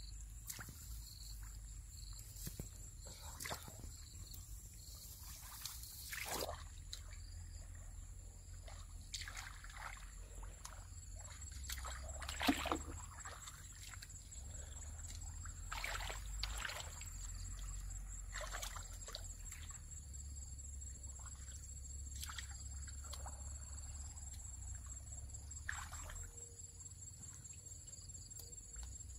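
Shallow muddy water sloshing and splashing in irregular short strokes as a person wades and gropes with her hands in the mud, one splash about twelve seconds in louder than the rest. A faint steady high whine sits underneath.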